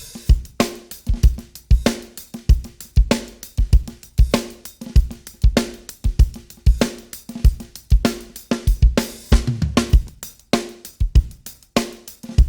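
Recorded drum kit playing a steady groove of kick, snare, hi-hat and cymbals, run through the TK Audio Transformer saturation box with all three harmonic stages engaged. The low end is a little more crunchy, with added thickness on the bottom and in the mid-range.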